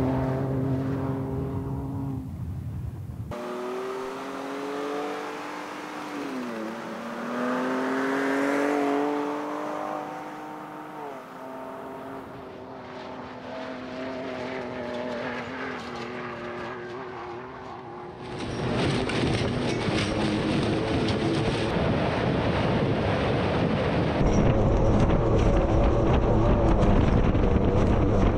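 Ford Ranger Raptor's 3.0-liter EcoBoost V6 revving hard, its pitch climbing and falling back several times. About two-thirds of the way in, a loud rush of tyres churning loose dirt and gravel joins and builds over the engine.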